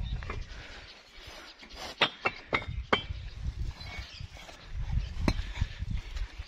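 Fired clay bricks clinking against one another as they are stacked in a donkey's panniers: a quick run of sharp clinks about two seconds in and another clink about five seconds in, over a low rumble.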